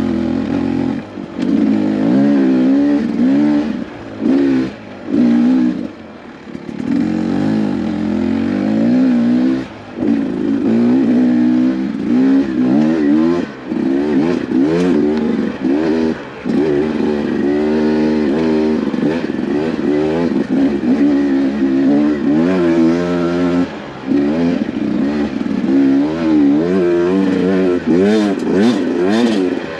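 Beta 250RR two-stroke dirt bike engine revving up and down under constant throttle changes, the pitch rising and falling every second or so with brief drops off the throttle, and scattered clicks and clatter.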